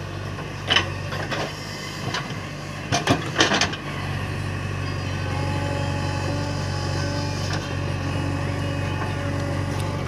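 JCB backhoe loader's diesel engine running steadily while the backhoe digs soil, with a few sharp knocks in the first four seconds.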